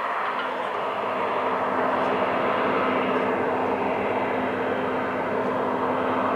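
Heavy demolition machinery running steadily: an even mechanical rush with a constant low hum underneath.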